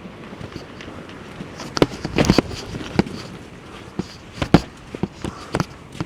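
Boots stepping and scuffing on wet ground: irregular knocks and scrapes, with a quick cluster about two seconds in, over a steady background hiss.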